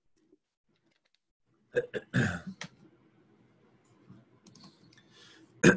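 A man drinking close to a computer microphone: a quick run of sharp clicks and swallowing sounds about two seconds in, then a short, loud throat clear near the end.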